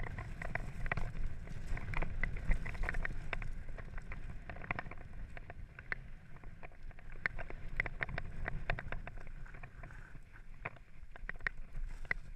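Mountain bike rolling down a rocky, gravelly singletrack: tyres crunching over loose stones and the bike rattling with many short clicks over the bumps, over a low rumble of wind. The clatter is busiest in the first few seconds and a little sparser after that.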